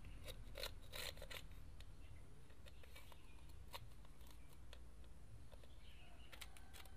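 Screwdriver tip scraping and picking hardened glue off the edges of a Vivo Y71's phone frame: faint scratches and small clicks, several close together in the first second or so, then only now and then. The old glue is a tough metal epoxy that is hard to scrape away.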